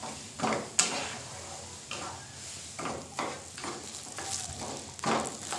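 Spatula stirring lumps of jaggery in water in a nonstick pan over a gas flame, with uneven scraping strokes against the pan about once or twice a second and a light sizzle from the heating liquid underneath, as the jaggery melts into syrup.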